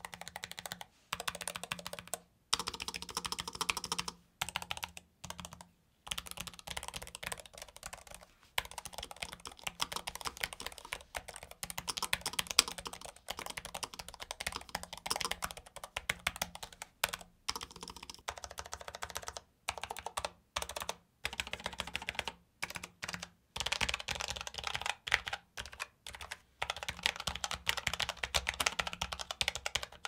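Fast typing on an Asus ROG Falchion RX Low Profile 65% wireless mechanical keyboard, a dense run of muted key clicks broken by a few short pauses. It has lubed low-profile switches and two layers of damping foam, giving a sound without rattle or ping.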